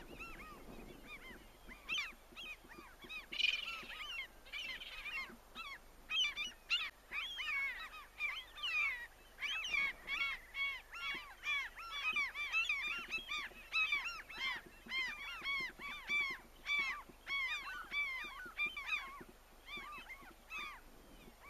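A flock of birds calling: many short, arched calls that are scattered at first and then overlap into a dense chorus from about six seconds in.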